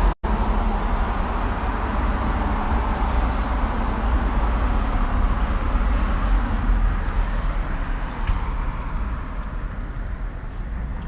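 Steady city street traffic noise: a low rumble with hiss and no distinct events. The sound drops out completely for a moment just after the start.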